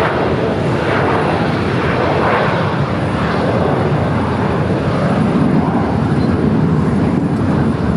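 Jet engines of a Gulfstream business jet running with a loud, steady roar as the jet rolls along the runway.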